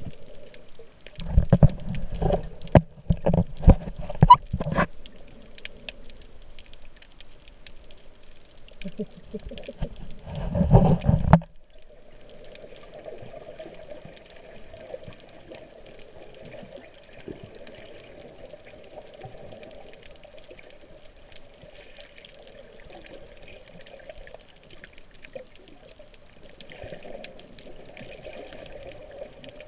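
Water sound picked up underwater by a GoPro in its waterproof housing: two loud spells of bubbling and gurgling, the first lasting about four seconds, the second about a second and a half some ten seconds in, then a steady, muffled underwater background.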